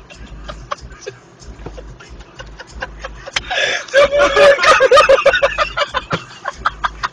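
People laughing in quick repeated bursts, breaking into a loud fit of laughter about three and a half seconds in that lasts over a second before dying back to chuckles.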